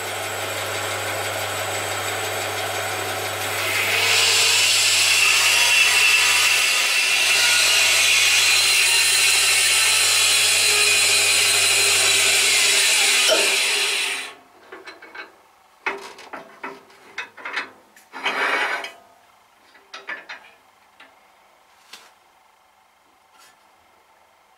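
Band saw running with a steady hum, its blade sawing through a wooden block. The cutting grows loud about four seconds in and stops sharply at about fourteen seconds. Scattered light knocks and rubbing follow as the wood is handled.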